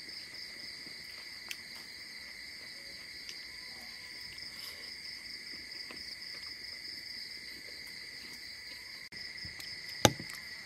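Steady chorus of crickets, a continuous shrill trill at two pitches. A few faint clicks sound over it, and a single sharp knock comes about ten seconds in.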